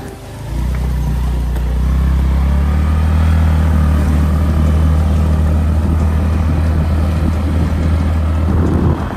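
A motor vehicle's engine running with a steady low hum that comes in suddenly about half a second in.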